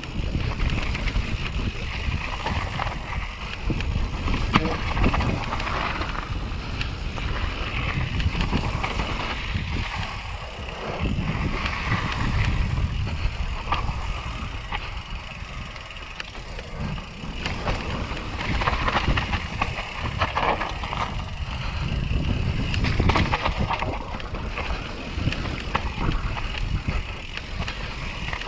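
YT Capra enduro mountain bike descending a dirt trail: constant tyre rumble over dirt and loose stones, with many short knocks and rattles from the bike. The rumble eases a little about halfway, where it rolls across a wooden berm.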